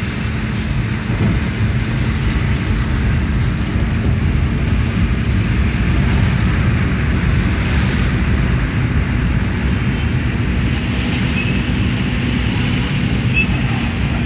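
Car driving on wet, muddy streets, heard from inside the cabin: a steady low engine hum and road rumble.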